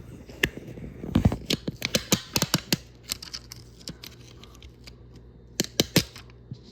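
Hands handling a plastic laptop case: a dense run of clicks, taps and scratchy rustles about a second in, then two sharp clicks near the end.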